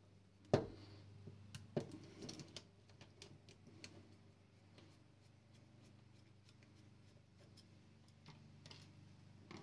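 Screwdriver turning out the small screw that holds the locking mechanism in a click-type torque wrench's handle: a sharp metal click about half a second in, a second click a little later, then light scattered ticks and scrapes that die away over the second half.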